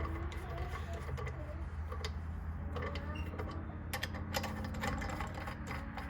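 Scattered light metallic clicks and taps of nuts being threaded by hand onto the nipple cups of a 6.0 Powerstroke oil rail, over a steady low hum.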